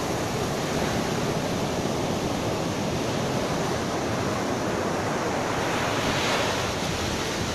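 Ocean surf washing up a sand beach, foamy water rushing over the sand in a steady wash. A wave comes in a little louder about six seconds in.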